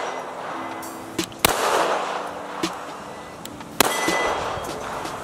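Two 9 mm pistol shots from a custom Smith & Wesson M&P 9, about two and a half seconds apart, each followed by echo off the surroundings; a short metallic ring follows the second shot.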